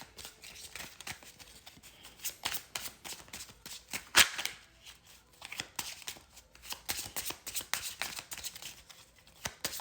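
A small deck of mini oracle cards being shuffled by hand: a run of quick card snaps and riffling clicks, with one louder snap about four seconds in.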